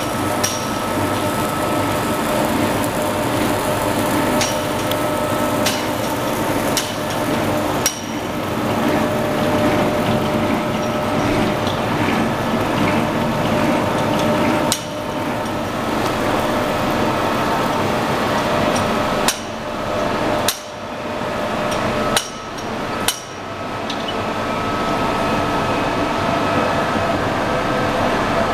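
Snack extruder production-line machinery running: a steady mechanical drone with a few held tones, broken by sharp metallic clicks and knocks at irregular intervals, several of them close together about two-thirds of the way through.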